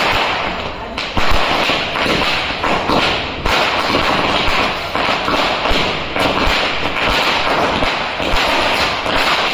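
Diwali fireworks: a steady spraying hiss with many small crackles and low thuds mixed in.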